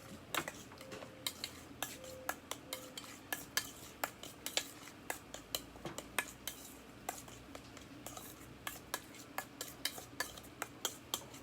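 Metal kitchen utensils clinking against cookware in many sharp, irregular taps, a few a second, as food is stirred and handled.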